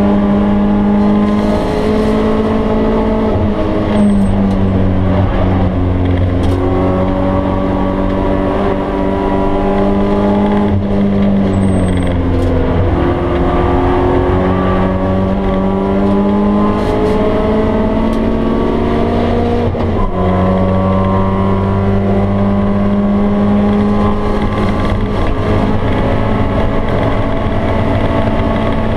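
BMW E30 318is's stock four-cylinder engine pulling hard, heard from inside the cabin, its pitch climbing steadily through each gear and falling back several times at gear changes or lifts.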